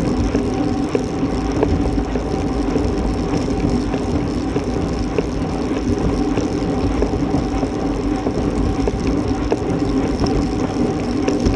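Steady wind rush and road rumble on a road bicycle's camera microphone, riding on asphalt at about 22 mph. A faint steady hum runs through it.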